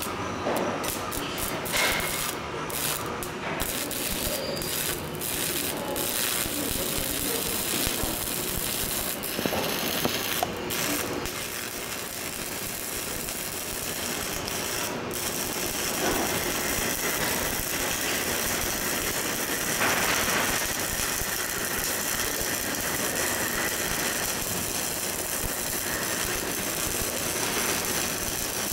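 Stick welding (shielded metal arc) running a vertical bead on steel plate: the arc burns with a steady crackling sizzle, more broken and popping in the first few seconds.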